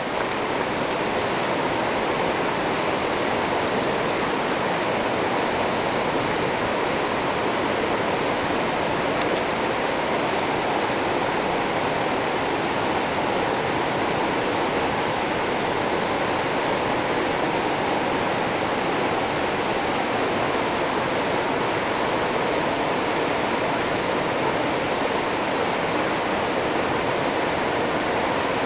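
River rapids: a steady rush of water flowing over rocks.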